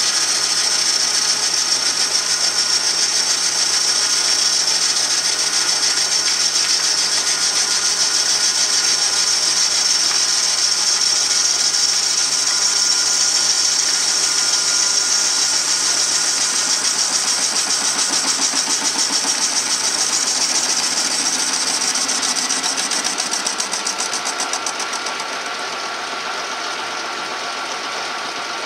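Metal lathe taking a cut on a steel part with a carbide insert tool: a steady cutting hiss over the running motor, which bogs a bit under the load because the old motor is wearing out. Near the end the cut finishes and the lathe runs on more quietly.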